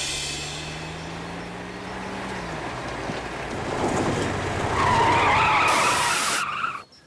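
Old military cargo truck driving along a dirt road, growing louder as it comes close, its tyres grinding through gravel and dust. About five seconds in there is a loud, wavering skidding squeal, and the sound then cuts off suddenly.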